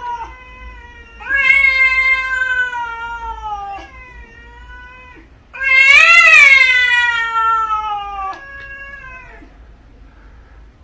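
A cat yowling in a series of long drawn-out calls, each sliding slowly down in pitch. The loudest call, a little past the middle, rises and then falls.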